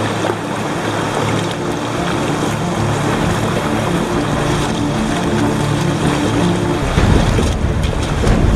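River water rushing around a moving kayak, with wind buffeting the microphone from about seven seconds in.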